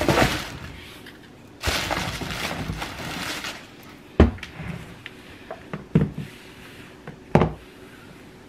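Rustling of handling, then three sharp knocks about a second and a half apart as a pair of black braided block-heeled slide sandals is set down on a hardwood floor.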